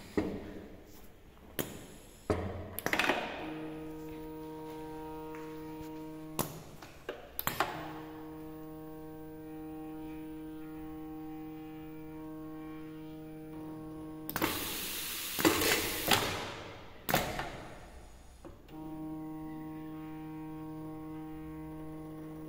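Automated mechatronic training station running its cycle: the conveyor drive motor hums steadily in three stretches, starting and stopping, with clacks of pneumatic cylinders and valves between them and short hisses of exhausting air about two-thirds of the way through.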